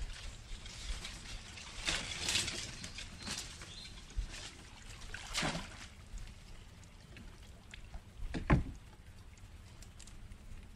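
Water splashing and dripping as a net crab trap is hauled up out of a river alongside a wooden boat, with several short splashes and one louder thump about eight and a half seconds in.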